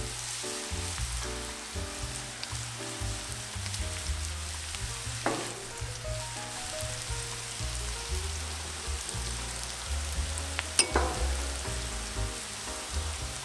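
Sliced onions sizzling as they fry in oil in a cast-iron skillet, a steady hiss with fine crackle. Two brief knocks cut through, about five seconds in and again, louder, near the end.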